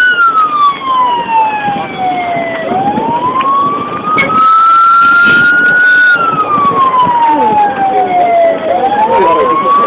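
Emergency vehicle siren wailing slowly, its pitch falling over nearly three seconds, rising over about three, then falling and rising again. Crowd voices sound underneath, and a loud rushing noise comes about halfway through.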